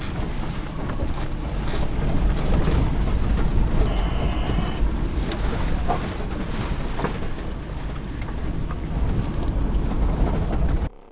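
Vehicle driving over a rough dirt forest road, heard from inside the cabin: a steady rumble of tyres on dirt and gravel with scattered knocks and rattles from bumps, and a brief high squeak about four seconds in. The sound cuts off abruptly just before the end.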